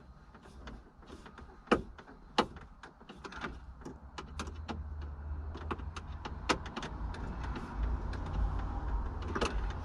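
Scattered clicks and knocks of plastic center-console trim being handled and fitted, two of them louder about two seconds in, with a low rumble building from about four seconds in.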